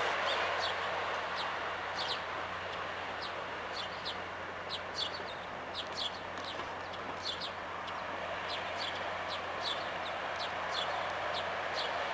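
Small birds chirping: short, sharp, falling chirps, about one or two a second, over a steady low background hum.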